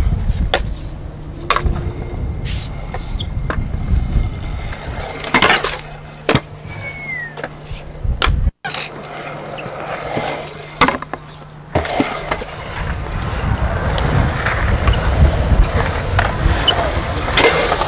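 Skateboard wheels rolling on concrete with repeated sharp clacks and knocks of boards hitting the ground, under a steady low hum. A brief dropout to silence about halfway through.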